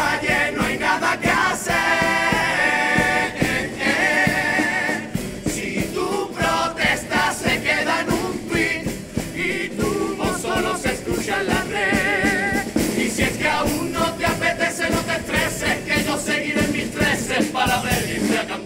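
Cádiz carnival comparsa choir singing together in several parts, with wavering held notes, over a steady beat.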